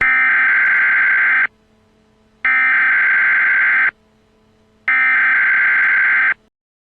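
Emergency Alert System SAME header: three bursts of buzzing digital data tones, each about a second and a half long, with about a second between them. It is the encoded header that opens an emergency alert broadcast.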